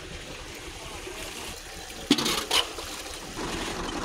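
Water trickling and splashing as bucketfuls are poured into a new tubewell's pump pipe to prime it, with a louder splash about two seconds in.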